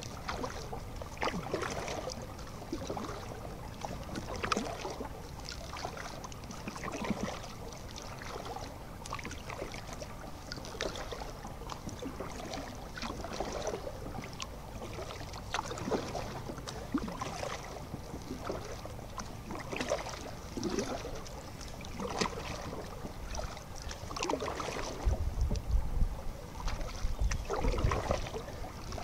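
Water splashing and dripping from a kayak paddle and lapping at the hull, in irregular strokes every second or two. Wind rumbles on the microphone near the end.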